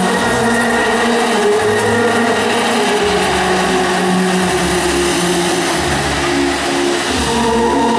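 Steady, loud hissing rush of a large firework fountain spraying sparks, over music with long held notes that change every second or so.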